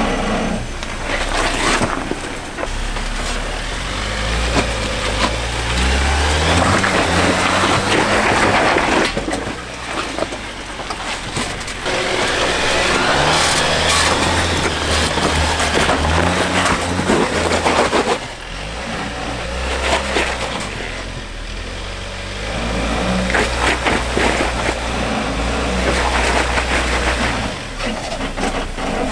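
A vehicle running, with a low, stepping pattern underneath that may be music.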